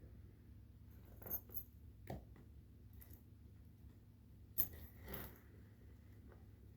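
Scattered light clicks and rustles, a few a second apart, of a cat playing with catnip, over a faint steady low hum.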